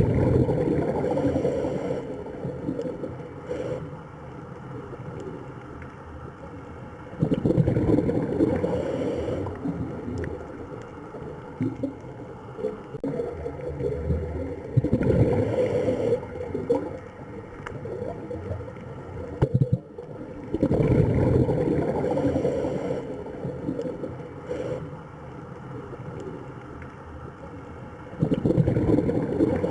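Moving water that swells and eases in surges about every seven seconds, its sound mostly low and deep.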